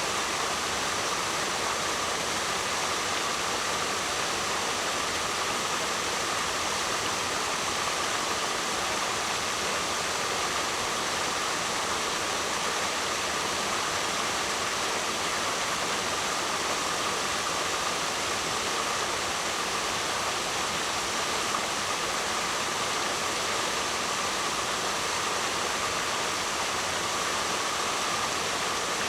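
Waterfall: a steady, unbroken noise of falling, splashing water that stays even throughout.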